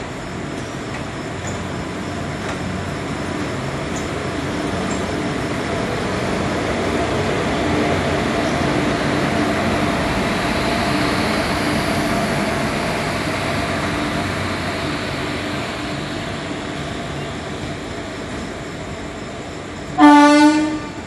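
Electric locomotive hauling a rake of passenger coaches past: the noise of the train swells to a peak about halfway through and then fades, with a steady hum running through it. Near the end, one short, loud train horn blast.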